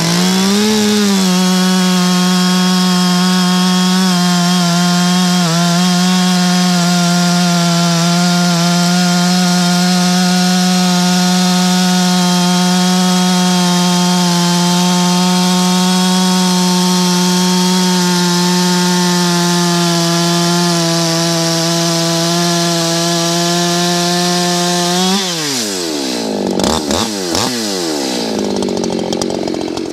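Echo two-stroke chainsaw at full throttle cutting through a large log with a 20-inch Oregon chain whose bumper links have been ground off. The engine holds a steady pitch under load for about 25 seconds, then its pitch drops and swings up and down as the cut finishes.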